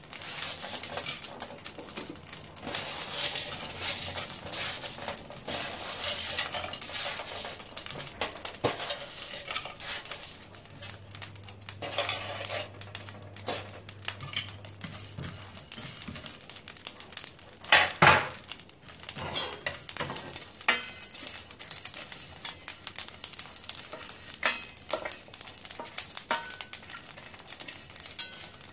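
Whole spices being dry-roasted in a stainless steel frying pan and stirred with a wooden spatula: dry seeds, pods and bark rattling and scraping against the metal pan, with many small clicks and one louder knock about 18 seconds in.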